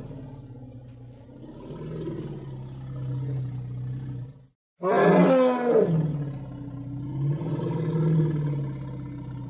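A person imitating a bull's bellow with his voice, twice. The first call trails off into a long low growl that stops about four and a half seconds in. The second starts loud just after, falls in pitch and settles into another long low growl.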